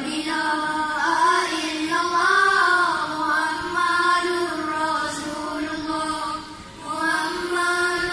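A boys' nasyid group singing an Islamic devotional song together, children's voices holding long, gliding melodic lines. There is a short break between phrases about six and a half seconds in.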